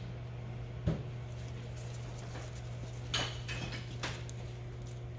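Light knocks and metallic clinks of pump parts being handled on a steel workbench: one dull knock about a second in, then a few sharper clicks around three to four seconds in, over a steady low hum.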